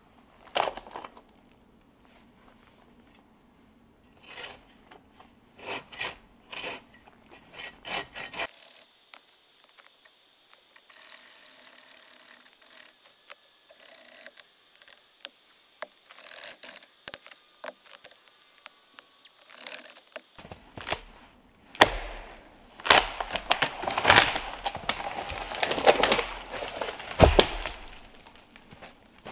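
Hand saw cutting through a standing, partly rotten (punky) dead tree, heard as separate rasping strokes. Louder sharp knocks and cracks come in the last third, as the tree comes down.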